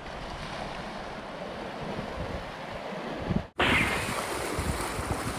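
Sea waves washing over shoreline rocks, with wind buffeting the microphone. The sound drops out for an instant about three and a half seconds in and comes back a little louder.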